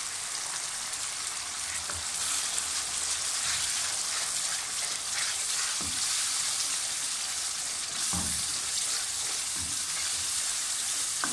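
Spiced masala gravy sizzling steadily in hot oil in a pan while freshly added blended yogurt is stirred in with a wooden spoon, with a few short knocks of the spoon against the pan.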